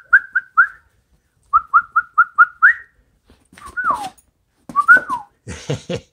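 A person whistling short, rising chirps in two quick runs of about five a second, then two longer sliding whistles, to call Airedale terrier puppies to attention.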